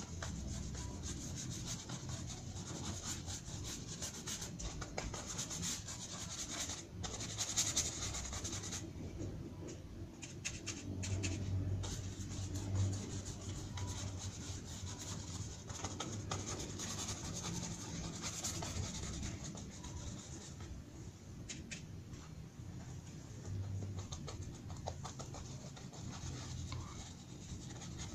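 A paintbrush scrubbing acrylic paint onto paper in many short, irregular back-and-forth strokes.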